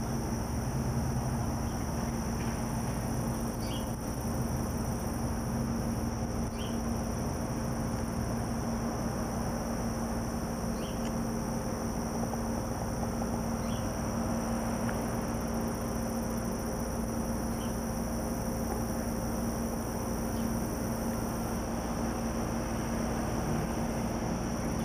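Steady outdoor insect chorus holding two high, unchanging tones over a steady low hum, with a few faint short chirps every few seconds.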